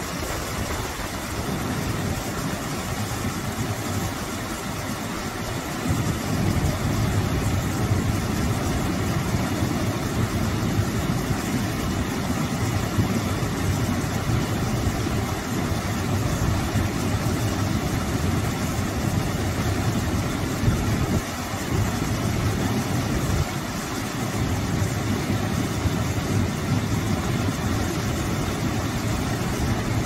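Small waterfall pouring in many streams over a low stone ledge into a foaming pool: a steady rush and splash of water with a low rumble, a little louder from about six seconds in.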